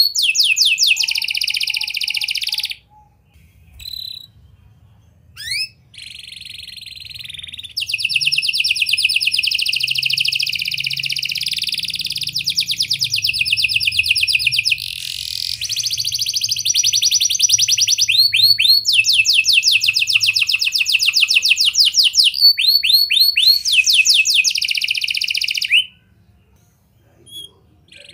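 Red-factor domestic canary singing long phrases of fast trills, each made of rapidly repeated notes. The song breaks off briefly about three seconds in and again near the end.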